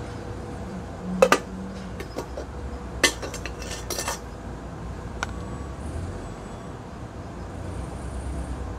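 A few sharp clinks and clatters of dishes and metal utensils, a plate being set down and handled among metal pots and a frying pan: the loudest pair about a second in, a cluster around three to four seconds in and one light click after that, over a steady low background noise.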